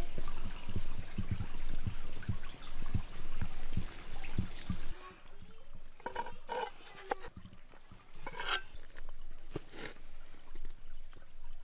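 River water trickling and splashing, louder for about the first five seconds. A few short knocks and scrapes follow as raw pizzas are set into a cast-iron pot.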